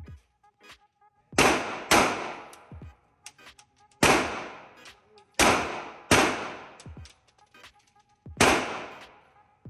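Glock 19X 9mm pistol fired six times at an uneven pace, about two seconds apart with a couple of quick pairs. Each shot is a sharp, loud crack that rings on briefly in the indoor range's lane, and faint clicks fall between the shots.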